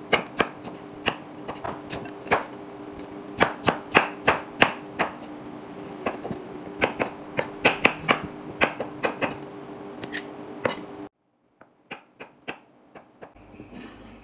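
Kitchen knife dicing jackfruit on a wooden cutting board: a quick, irregular run of sharp knocks of the blade striking the board, over a steady low hum. About eleven seconds in, the sound drops suddenly and a few fainter knocks follow.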